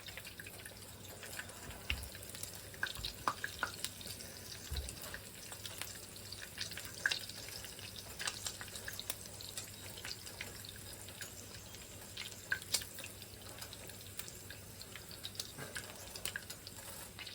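Food cooking on the stove: a soft steady hiss with scattered small pops and crackles, typical of a pan sizzling or a pot simmering.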